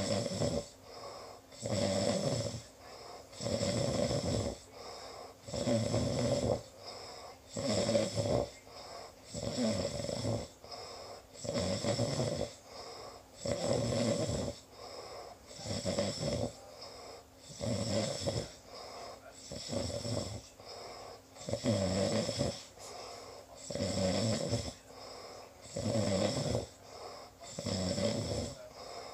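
Steady snoring: a loud snore about every two seconds, with a softer breath sound between each.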